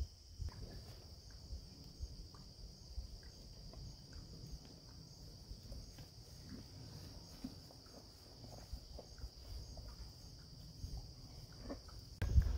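Insects keep up a steady high-pitched chorus, with faint scattered clicks and a low rumble underneath. A louder low rumble comes in near the end.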